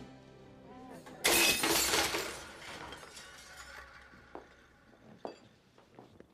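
A tray of glassware dropped, crashing and shattering about a second in, with broken pieces clinking as they settle for a second or two afterwards.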